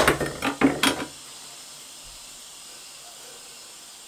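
A quick run of clattering knocks and clicks from hard objects being handled, stopping about a second in, followed by a faint steady background hiss.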